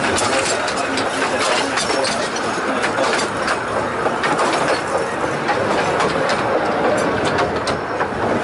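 Fairbourne Railway miniature train running along the track, heard from on board: a steady rumble and rattle of the carriage with frequent sharp wheel clicks over the rails.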